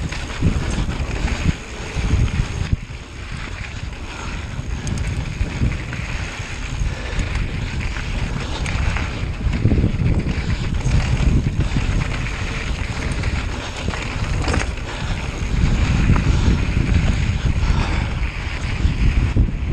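Air rushing and buffeting against the microphone: a loud, uneven low rumble that swells and eases irregularly.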